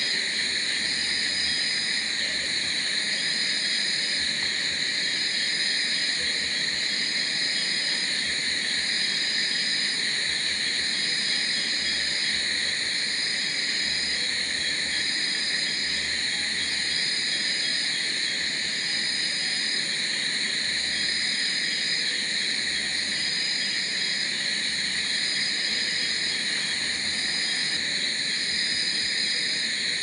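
Steady night chorus of crickets and other calling insects, with one high trill that breaks off and restarts about every two seconds.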